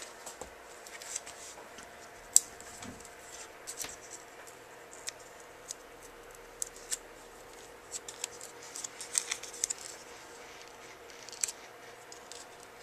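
Close paper and adhesive handling: irregular small clicks and crinkles as fingers peel the backing from a foam adhesive pop-up dot and press a cardstock speech bubble onto a card. A faint steady hum runs underneath.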